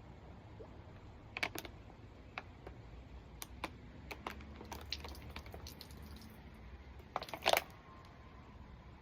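Plastic water bottle crinkling and clicking in short scattered bursts as it is squeezed to force water into the mouth, with a louder cluster about seven seconds in.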